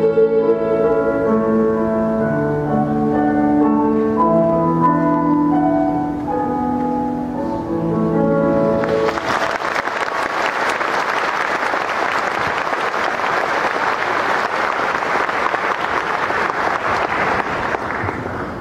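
A children's choir with piano accompaniment sings the final held chords of a song; about nine seconds in the music ends and the audience applauds steadily, fading near the end.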